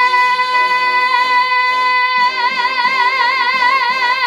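A woman belting one long, high sung note, held steady and then breaking into vibrato about halfway through, over an instrumental accompaniment with a pulsing beat.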